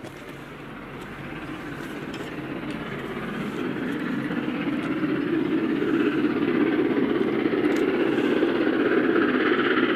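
Steam locomotive hauling a train, heard approaching down the line and growing steadily louder.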